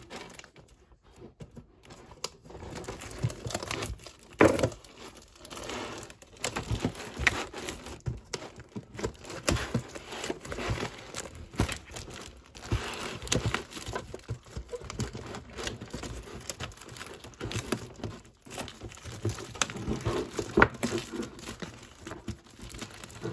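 Plastic shrink wrap crinkling and tearing as it is pulled off a metal lunch box tin. Irregular crackling starts about two seconds in, with a few sharper cracks.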